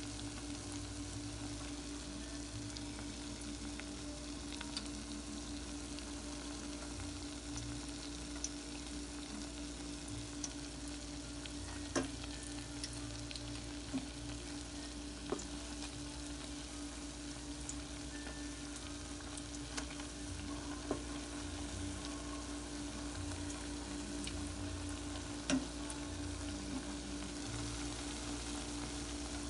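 Tortang okra (okra and egg omelette patties) frying in hot oil: a steady sizzle with a few sharp pops scattered through, over a low steady hum.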